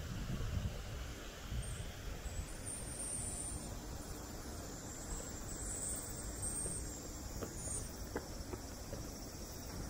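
Outdoor ambience: a steady high insect drone from the trees over a low hiss, with a few low rumbles in the first moment.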